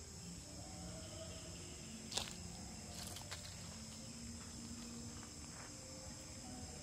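Steady high-pitched insect chorus, with one sharp click about two seconds in and a few fainter clicks shortly after.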